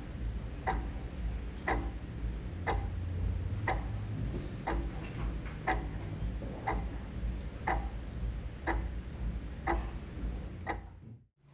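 Wall clock ticking, one sharp tick each second, over a low steady hum; the ticking and hum cut off suddenly near the end.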